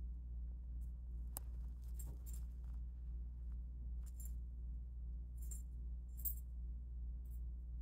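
Two cats play-wrestling on carpet: scattered brief, faint high-pitched clinks and scuffs, about half a dozen, over a steady low hum.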